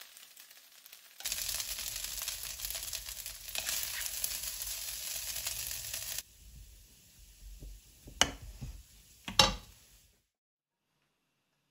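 Hot fried rice sizzling as it is scooped with a plastic spatula: a steady hiss that starts about a second in and cuts off abruptly around six seconds. Then quieter scraping and two sharp knocks of the spatula against the ceramic bowl, the second the louder, before the sound stops suddenly.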